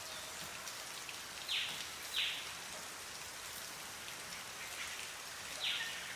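Steady, even hiss of rainforest ambience, with two pairs of short, higher-pitched sounds, one pair about a second and a half in and the other near the end.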